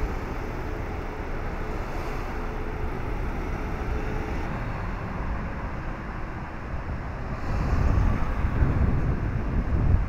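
Outdoor street traffic noise with wind buffeting the microphone; the low rumble grows heavier and gustier about three-quarters of the way through.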